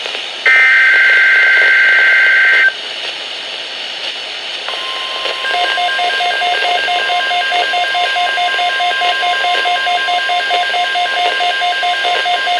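NOAA Weather Radio alert on a Midland WR300 receiver: a burst of the two-pitch SAME data header screech ends about three seconds in, then after a short lull the steady NOAA warning alarm tone starts, joined a second later by the radio's own rapid electronic beeping, about four beeps a second, announcing a tornado watch.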